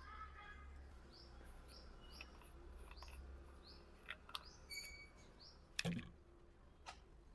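Faint small-bird chirps: short, high notes that slide downward, repeated irregularly, with one longer, clearer note near the middle. A few light clicks and a soft knock come about six seconds in.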